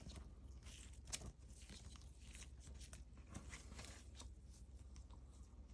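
Faint, scattered crinkling and clicking of paper banknotes being handled, one slightly louder crackle about a second in, over near-silent room tone.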